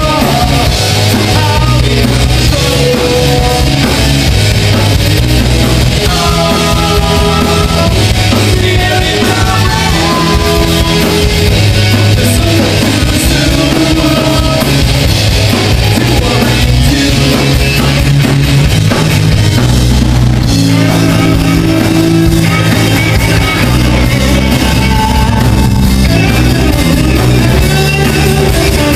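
Live rock band playing at full volume: drum kit, bass guitar and electric and acoustic guitars.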